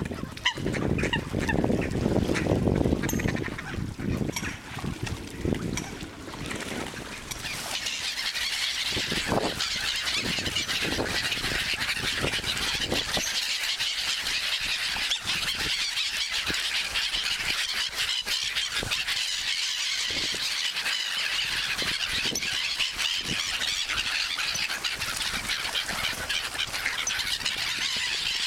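A flock of gulls calling continuously in a dense, high-pitched squealing din as they mob the water for food, with other waterbirds among them. The first several seconds carry louder, lower, uneven sounds before the gulls' calls take over.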